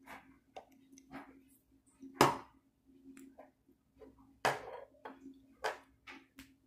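Sharp clicks and knocks of small objects being handled on a work table, with two louder knocks about two and four and a half seconds in.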